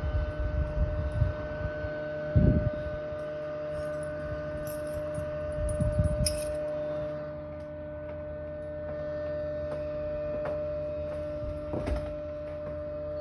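A constant droning hum made of several steady held tones, the loud noise heard in the middle of the night, with a few short low thumps about two and a half, six and twelve seconds in.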